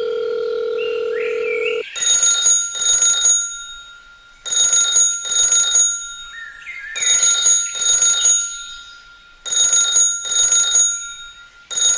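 An alarm ringing in pairs of short rings, a pair about every two and a half seconds, after a steady low tone for the first two seconds.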